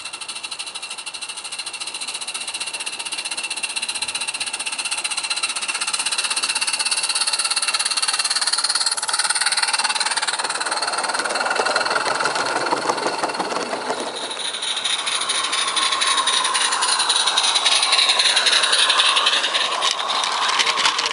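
Small live-steam garden-scale locomotives with their coaches running past close by: a fast, even chuffing beat with the wheels rattling along the track, swelling twice as trains come by.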